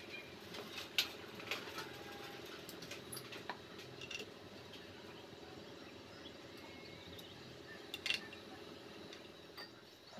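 Scattered light metallic clinks and taps of a Tata 407 GB-20 gearbox's main shaft parts being fitted by hand, over a steady low hum. The sharpest clinks come about a second in and about eight seconds in.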